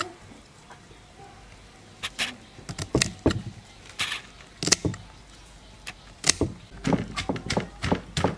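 Yardlong beans cut with a knife over a wooden mortar in a few crisp, irregular cracks. From about six seconds in, a wooden pestle starts pounding in the mortar, with sharp knocks about three times a second.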